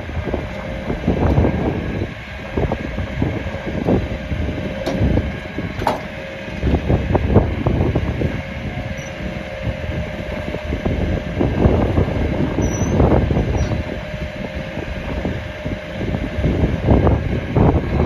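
Heavy rotator tow truck's engine running steadily with a constant whine while its boom winches a tipped John Deere 410K backhoe back onto its wheels, with wind gusting on the microphone. A sharp knock comes about six seconds in.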